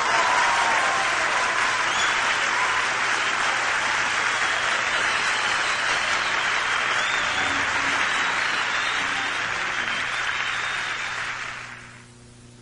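A large concert audience applauding after a song ends, with a steady dense clapping that fades out near the end.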